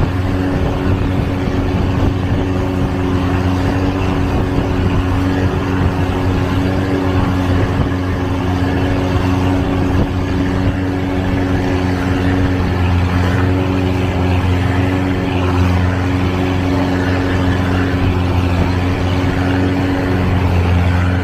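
Long-tail boat's automotive engine running steadily under way, a constant engine hum at a fixed speed over a broad rushing noise.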